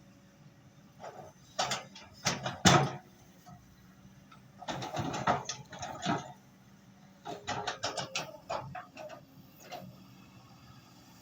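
Excavator engine running with a low steady hum, under three bursts of rattling, clattering knocks. The loudest knocks come about two to three seconds in.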